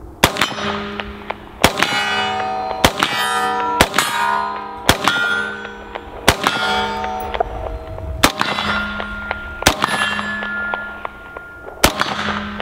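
An AR-15 rifle in .223 firing about ten shots at an uneven pace of roughly one a second. Each shot is followed by a ringing clang, typical of hits on steel targets.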